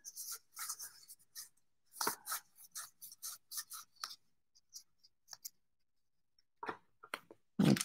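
Cardboard baseball cards being slid and flicked against one another in the hands: a quick run of soft scratchy swishes and clicks for about four seconds, then a few scattered ones near the end.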